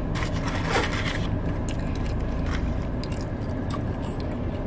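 Paper fast-food packaging rustling and crinkling as fries are picked out and eaten, with scattered crisp ticks, over a steady low rumble inside the car.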